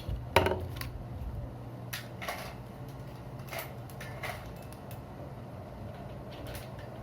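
Scattered clicks and knocks of plastic parts being handled as a ring light and its stand are fitted together, the loudest about half a second in, over a steady low hum.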